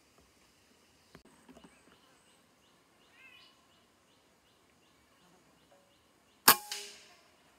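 A single shot from a PCP air rifle about six and a half seconds in: one sharp crack with a short tail dying away over about half a second. Before it, faint regular chirping of about three a second.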